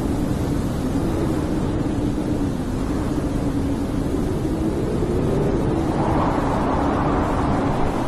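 Blizzard wind blowing steadily, with a low wavering moan running through it and a gust that swells about six seconds in.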